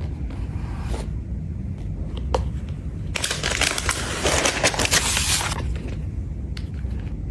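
Packaging of a MacBook Pro box being opened by hand: a few sharp clicks, then a loud crackling and crinkling stretch of about two and a half seconds in the middle as paper or plastic wrap is torn and peeled away.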